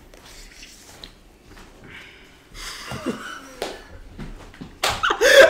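Quiet room with faint handling sounds and a brief breathy sound, then laughter breaking out loudly near the end.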